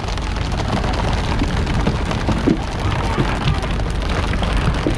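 Steady spattering of water on the sea surface alongside a pole-and-line tuna boat, over a low rumble, with a few soft knocks about halfway through and near the end.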